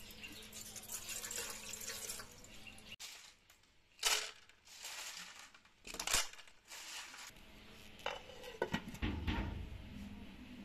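Water poured and splashing into a pot of snails, with two sharp loud splashes about four and six seconds in. Near the end, knocks and a clatter as a glass lid goes onto the pot.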